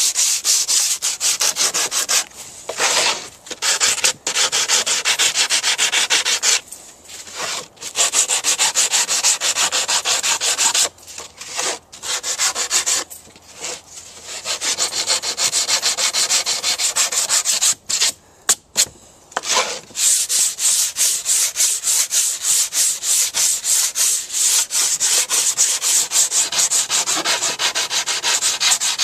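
Sandpaper on a hand sanding block rubbed in quick back-and-forth strokes along the freshly sawn edge of a wooden board, smoothing it free of splinters. The strokes come in long runs with several short pauses between them.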